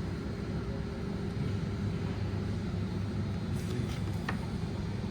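Steady low rumble of store background noise, with a couple of faint clicks in the second half.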